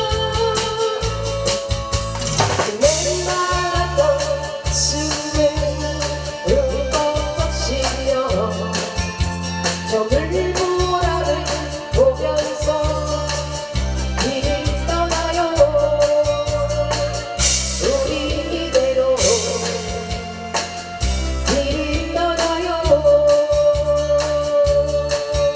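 Korean trot (ppongjjak) music with a steady drum beat and bass line under a melody that slides between notes.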